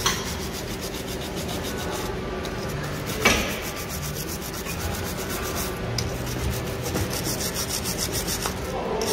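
Hand wire brush scrubbing the rusty top mount of a front strut assembly, in quick back-and-forth scratchy strokes, about five a second. A single sharp knock about three seconds in.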